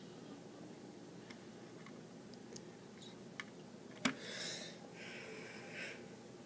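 Quiet room with a few faint ticks; a sharp click about four seconds in, followed by two soft rustles.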